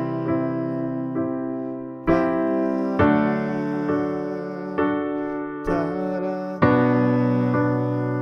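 Keyboard with a sampled piano sound playing a slow, simple pulsed chord pattern: chords struck about once a second over held bass fifths, moving from C to D to B.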